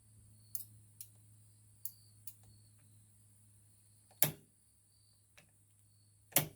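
A few light clicks in the first couple of seconds, then two louder sharp knocks about two seconds apart, over a faint steady hum.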